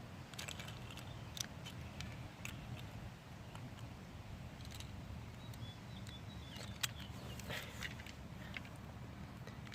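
Faint scattered clicks of plastic Beyblade parts being taken apart and refitted, over low steady background noise.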